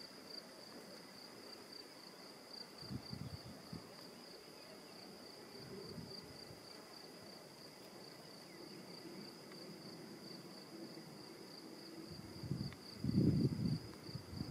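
A stridulating insect trilling steadily in one high, fast-pulsing tone. Low rumbles on the microphone come about three seconds in and again, louder, near the end.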